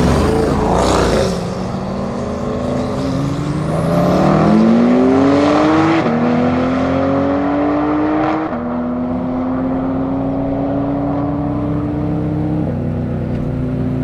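An Audi RS6 Avant and a tuned Porsche 991 Turbo S accelerating hard side by side: a loud close pass with a falling pitch in the first second or so, then engine notes climbing in pitch and dropping back at three upshifts as the cars pull away into the distance.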